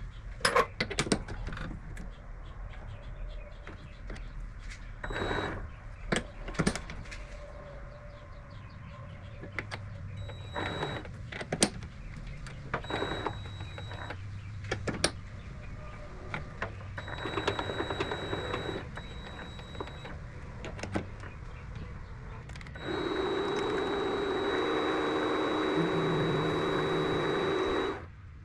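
Vevor MX400 mini lathe at work on a part, running in short spells with a thin high whine, among sharp clicks and knocks of tools and handwheels being handled. About 23 seconds in it runs steadily and louder for about five seconds, then stops abruptly.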